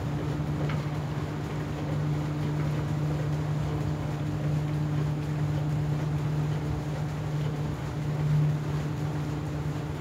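Ferry's engine running steadily under way, a constant hum that holds one pitch, with light wind noise on the microphone.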